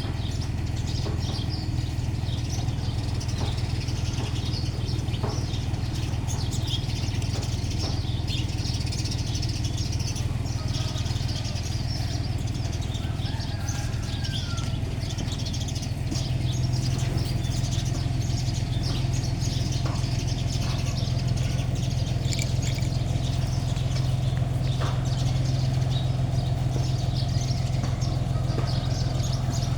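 Small birds chirping over a steady low hum; the hum grows a little louder about halfway through.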